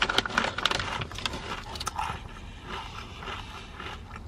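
Crunching of a roasted potato crisp being chewed, with dense sharp crackles for about the first two seconds, then softer chewing.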